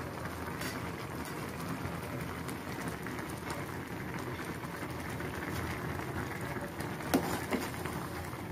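Maggi noodles boiling in a saucepan: a steady bubbling hiss, with a couple of light clicks near the end.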